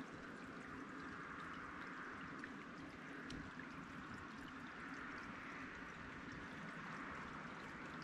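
Mountain creek cascades rushing steadily, faint and even, with no change.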